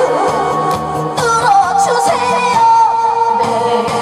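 A woman singing through a microphone over musical accompaniment, with long held notes that waver in vibrato.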